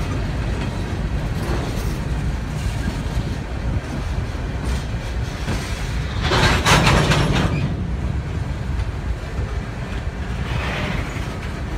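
Empty Norfolk Southern coal cars rolling past: a steady low rumble of steel wheels on rail. There is a louder burst of rapid clattering about six seconds in and a fainter one near the end.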